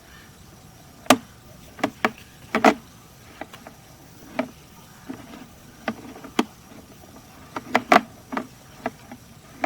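Irregular sharp clicks and knocks, about twenty spread unevenly, from a sewer inspection camera rig as its push cable is worked along the line.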